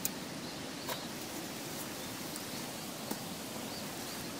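Quiet outdoor background hiss with a few faint clicks and light rustling as camping gear is handled.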